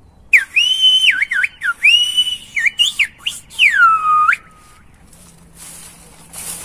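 Silbo Gomero whistled speech: one person whistles a message as a melodic line of high gliding pitches that rise, fall and break off like syllables. It ends on a long falling glide about four seconds in. The whistler says the message is "to be or not to be, that is the question".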